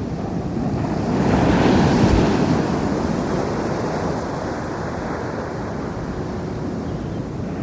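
Ocean surf: a wave breaks and washes up the beach, swelling to its loudest about two seconds in and then easing into a steady rush of water.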